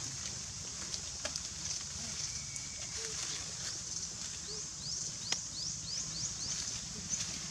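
Tropical forest ambience: a steady high insect drone, with a bird giving a quick run of short rising chirps a little past halfway. A few sharp clicks and crackles, like dry twigs or leaves, sound about a second in and again near the middle.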